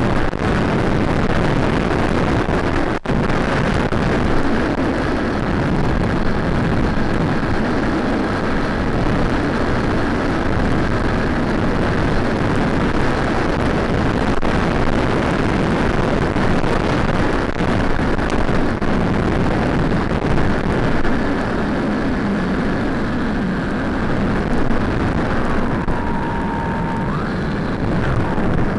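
Steady, loud rushing noise on the audio of an FPV aircraft's analog video feed, with a brief dropout about three seconds in.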